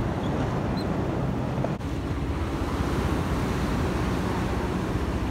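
Steady wash of ocean surf mixed with wind buffeting the microphone, a constant rushing with a heavy low rumble.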